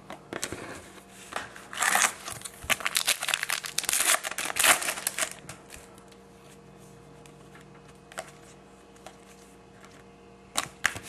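Trading card foil packs and cards being handled, with crinkling and rustling in bursts through the first half, then quieter handling with a couple of sharp clicks near the end.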